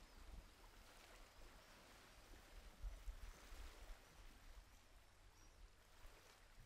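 Near silence: a faint, even hiss over a low rumble.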